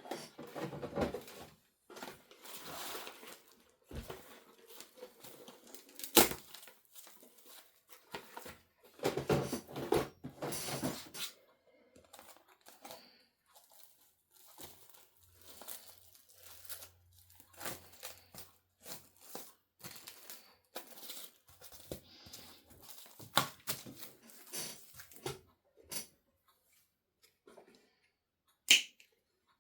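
Handling noise: irregular rustling and crinkling with scattered clicks and taps, as materials are moved about on a work surface. Sharp clicks stand out about six seconds in and near the end.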